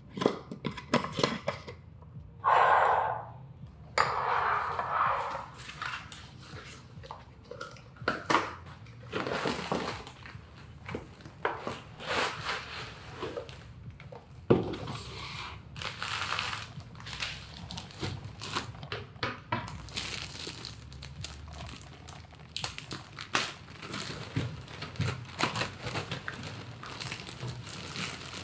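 Close-up handling sounds: a jar lid twisted shut with scraping and knocks, then a plastic bag of potting mix crinkling and rustling as it is handled and opened, with light taps and clicks throughout.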